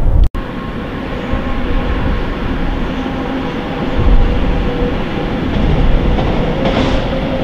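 Train running past: a steady rolling rumble with a faint hum.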